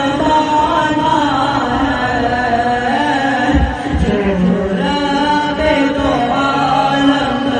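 A boy's solo voice reciting a naat, an unaccompanied Urdu devotional chant, in one long gliding melody. A brief low thump comes about halfway through.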